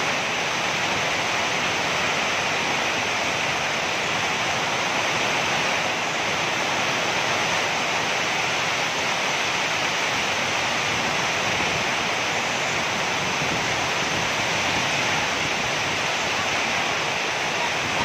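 Heavy rain falling in a steady, dense hiss.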